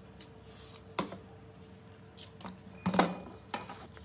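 A few sharp knocks and clicks of a marker, a tape measure and a wooden handle being handled on a wooden table: one about a second in, the loudest cluster about three seconds in, then another shortly after.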